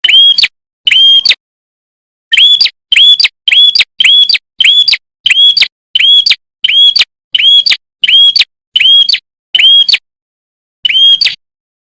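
A red-headed prenjak calling: a loud, clean string of identical short whistled notes, each sweeping up sharply and held high, repeated about one and a half to two times a second, with short breaks about a second and a half in and again near the end.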